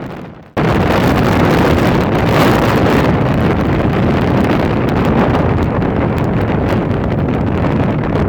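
Strong wind blowing across the microphone: a loud, steady rumbling noise that cuts in abruptly about half a second in.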